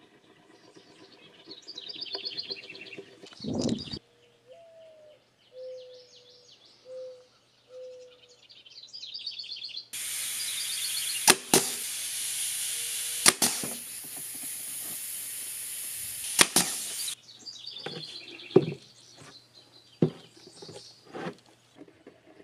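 Pneumatic nail gun driving nails into OSB board: five sharp shots, two quick pairs and then one more, over a loud steady air hiss that starts and stops abruptly. Birds chirp before and after, with a few scattered knocks.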